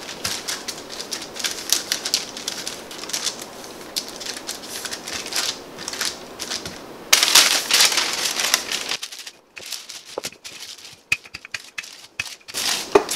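Parchment paper rustling and crinkling under hands pressing and shaping a pizza dough, in many short rustles and ticks. A louder stretch of rustling comes about seven seconds in, then only scattered quiet ticks and crackles.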